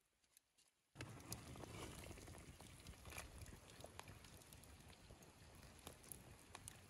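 A large pot of broth at a hard rolling boil over a wood fire, bubbling steadily with many sharp little pops, starting about a second in after near silence.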